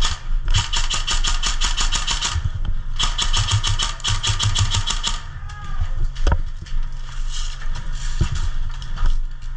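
Airsoft rifle firing on full auto in two long bursts, each about two seconds of rapid, evenly spaced shots at about ten a second, followed by a few single shots.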